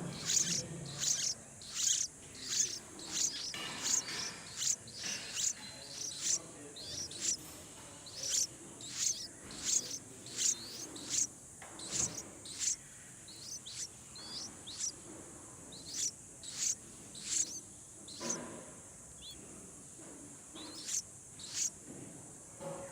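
Baby bird chirping: a long series of short, high cheeps that slide downward in pitch. They come about two a second at first and grow more spaced out later. A steady high-pitched drone runs underneath.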